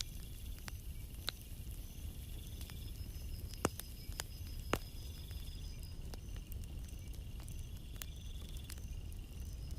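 Night seashore ambience: a steady low wash of calm sea, with insects chirping in short repeated high trills. Scattered small clicks, two a little louder about four and five seconds in.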